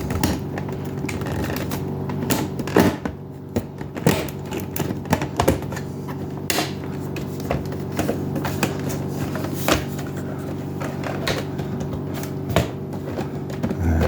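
Plastic side panels of a Keurig K-Supreme coffee maker's housing clicking and knocking irregularly as they are lined up and pressed into the channels on the base.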